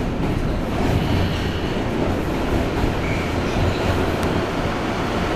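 R160A-2 subway car running through a tunnel, heard from inside the car: a steady rumble of wheels on rail and running gear, heaviest in the low end, with no pauses or stops.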